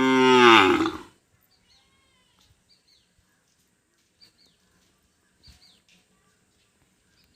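A cow mooing: one long, loud call that ends about a second in. After it come a few faint, short, high chirps.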